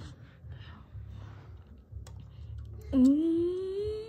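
Faint clicks and rustles of plastic toy pieces being handled, then about three seconds in a child's voice starts a loud, long drawn-out vocal note that slides up in pitch and holds.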